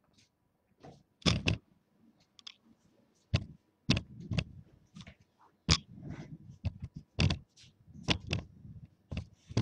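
A run of irregular clicks and knocks, some with a dull thud and a little scraping, coming every half second to a second.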